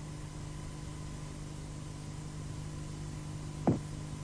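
Steady low electrical hum with a faint high tone and a light hiss, from an old film soundtrack. A single short, sharp sound comes near the end.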